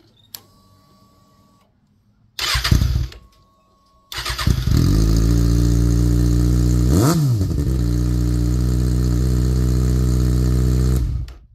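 2019 Kawasaki ZX-6R inline-four engine started and run with its stock exhaust silencer removed. A first brief crank does not catch; the second catches. The open pipe then runs at a steady, loud idle with one quick throttle blip midway, and the engine is shut off near the end.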